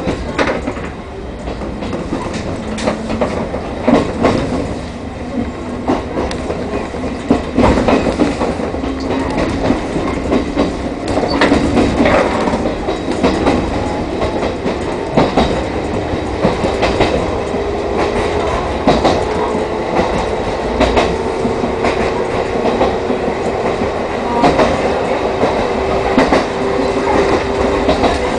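Chichibu Railway 1000 series electric train (ex-JNR 101 series) running between stations: a motor whine that slowly rises in pitch as it gathers speed, over the clickety-clack of wheels on rail joints.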